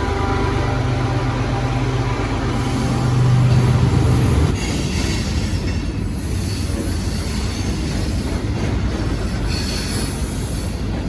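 BNSF freight train passing: the diesel locomotive's engine hum dominates for the first four seconds or so, then it drops away to the steady rolling noise of the cars going by, with faint high wheel squeal.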